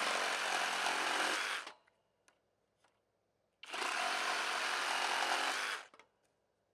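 Flex 24V brushless cordless reciprocating saw cutting through a knotty 1x6 wood board, twice. Each cut runs about two seconds, and a pause with a couple of faint clicks separates them.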